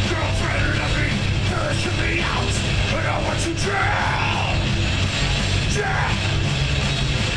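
Heavy metal band playing live: distorted electric guitars, bass and drums, with yelled vocals over them.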